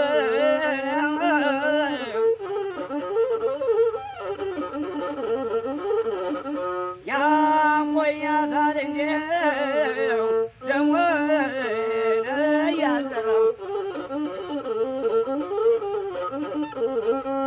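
Masinko, the Ethiopian one-string bowed fiddle, playing a wavering, ornamented melody over a steady low note in traditional azmari style.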